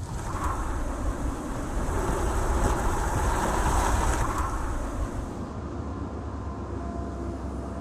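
Car driving: engine and road noise that builds over the first couple of seconds, then eases off about five seconds in.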